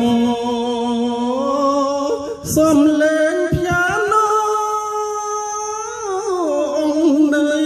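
IN-brand PA speakers playing back a slow song: long held sung notes with a slight waver, over light accompaniment with little bass.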